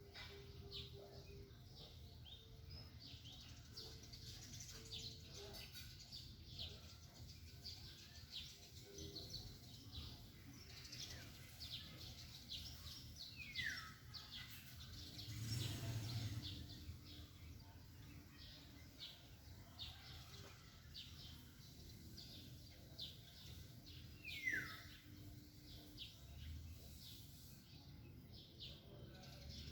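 Small birds chirping faintly in a steady scatter of short high chirps, with two downward-sliding calls, one about halfway through and one near the end. A brief rush of noise shortly after the middle is the loudest moment.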